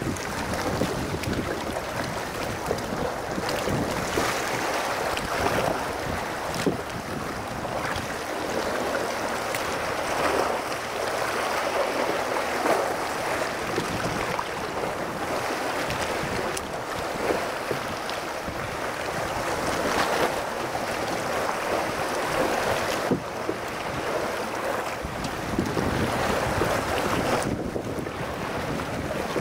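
Sea water sloshing and splashing against a rocky shore close beside a rowing boat, swelling and easing every few seconds, with some wind noise on the microphone.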